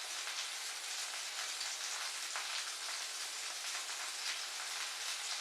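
Sausages frying in a pan with oil: a steady sizzle with fine crackles and spitting.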